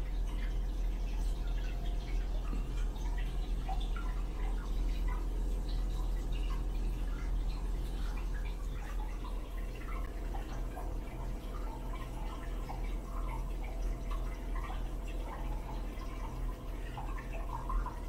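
Hot-spring water running from a spout into a glazed ceramic bathtub: a continuous trickle of small drips and splashes over a steady low hum.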